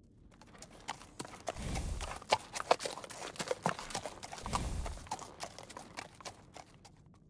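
A horse close by, its hooves knocking irregularly on the ground. Two low, half-second rushes of sound come about three seconds apart.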